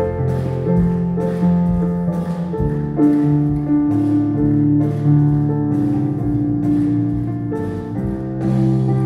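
Worship band playing an instrumental passage without singing: held keyboard chords over electric bass guitar notes, with the drums keeping a light beat.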